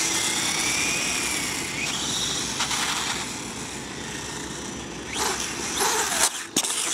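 SkyRC Super Rider SR4 RC motorcycle's brushless electric motor whining, its pitch rising and then falling in the first two seconds, over a steady rush of tyre and outdoor noise. The sound grows louder about five seconds in, then cuts off abruptly.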